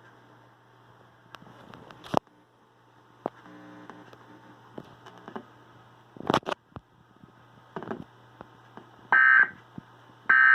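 Steady electrical hum with scattered clicks and knocks, the loudest a sharp double click about six seconds in. Near the end come short bursts of warbling EAS data tone, about a second apart, as the end-of-message code is sent.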